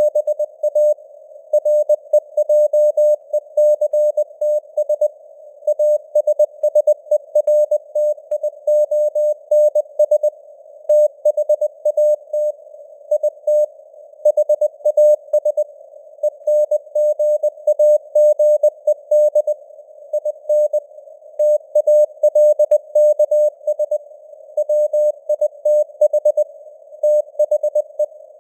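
Morse code sent at 20 words per minute: a single steady tone keyed on and off in short and long elements, with brief pauses between letters and words. It is laid over a soft hiss of simulated radio noise, with the signal strength fading up and down (QSB).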